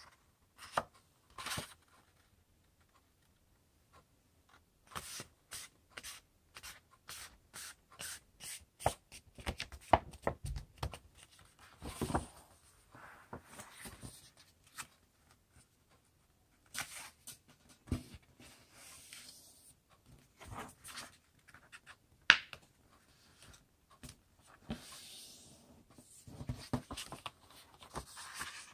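A sheet of paper being folded by hand: crackles and rustles as it is handled, and short sharp scrapes as fingers press the creases flat. These come in irregular bursts with a few short pauses.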